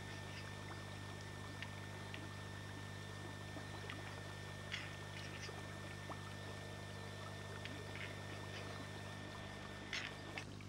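Sparse, irregular faint clicks from displaying male Eurasian capercaillies at a lek, over a steady low hum.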